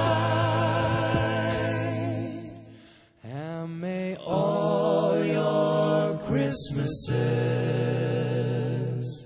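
Several voices singing sustained a cappella chords without words, with vibrato. The first chord fades out about three seconds in, then new chords swell and are held until near the end.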